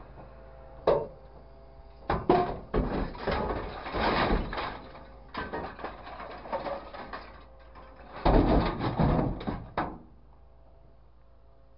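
Scrap metal and car parts crashing and clattering into a grapple truck's steel bin as the grapple drops its load. There is a sharp hit about a second in, then two long stretches of clatter, over a faint steady hum.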